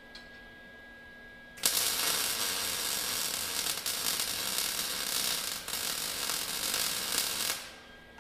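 Wire-feed welding arc crackling and sizzling steadily as a weld bead is run. It starts abruptly about a second and a half in and stops near the end.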